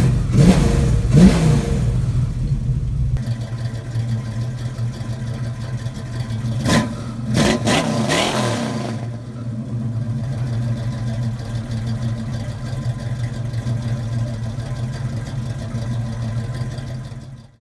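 1968 Ford Mustang's 351 Windsor V8 idling through long-tube headers and Flowmaster 40 mufflers, blipped twice about a second in and three more times about seven seconds in, each rev rising and falling back to a steady idle.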